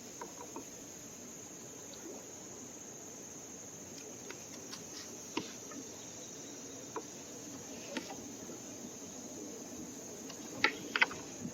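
Steady high-pitched insect chorus from the riverbank, with a few sharp knocks scattered through, the loudest near the end.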